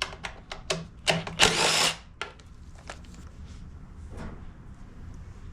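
An 8 mm socket tool backing out a valve-cover bolt on a Kohler Courage engine: a run of sharp clicks, with a short, loud rattling burst about a second and a half in.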